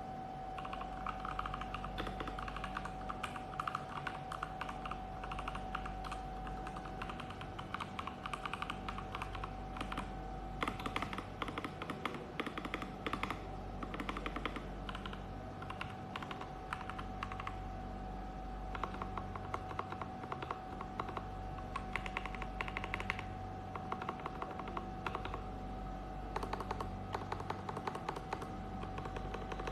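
Typing on a LEAVEN H96 mechanical keyboard: rapid keystrokes in irregular bursts, with a steady tone and a low hum underneath.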